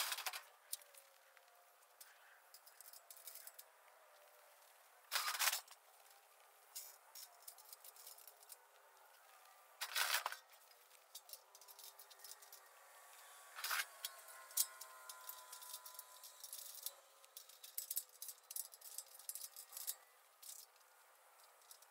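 Faint metallic knocks and rattles of steel livestock pen panels being handled and moved, with a few louder clanks spread out and a run of quick small clicks and rattles near the end.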